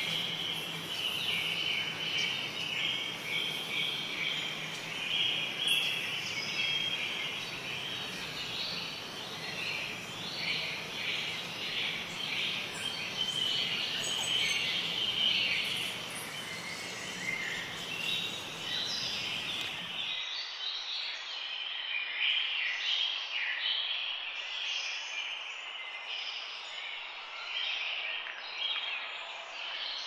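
Many birds chirping together in a dense, continuous chorus of short, high calls. A background hiss under them drops away about two-thirds of the way through while the chirping carries on.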